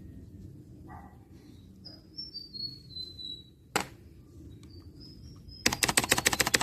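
A rapid burst of mechanical keyboard keys clattering near the end, after a single sharp key click. Faint bird chirps, falling in pitch, come twice in the background.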